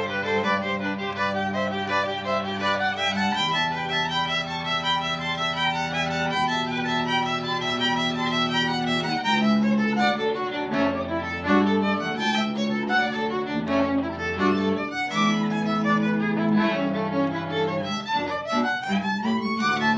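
Small string ensemble, violin and cello with a third bowed string, playing a piece together: held low cello notes under the moving violin line, with a quick rising run near the end.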